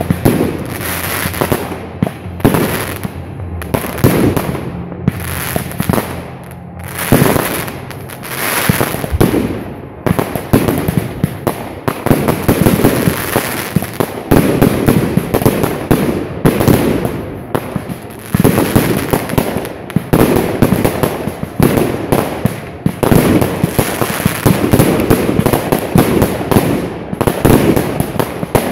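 Aerial fireworks firing in quick succession: a dense run of bangs and crackling bursts, in loud clusters with only short lulls.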